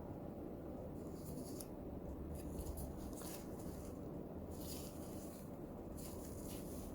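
Packaging being handled during an unboxing: about five short rustles, over a low steady background hum.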